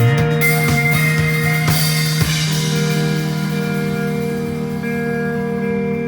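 Live instrumental rock band with guitars, bass, keyboard and drums. A few drum hits and a cymbal crash in the first couple of seconds, then the drums drop out and sustained guitar and keyboard chords ring on.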